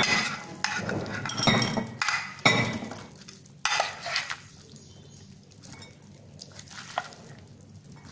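A metal spoon scraping and clinking against glass dishes while a moist sprout salad is spooned from one glass dish into another. The strokes come thick in the first four seconds, then only a few faint scrapes and one clink near the end.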